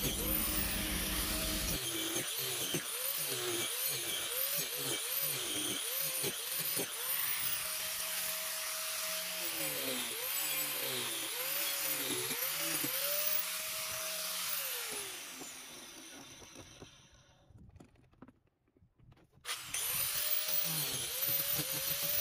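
DeWalt angle grinder with a carving disc power-carving into a softwood board, its whine dipping over and over as the disc bites into the wood under load and recovering as it lifts. About three-quarters of the way in the sound fades away, and after a brief silence the grinding starts again abruptly.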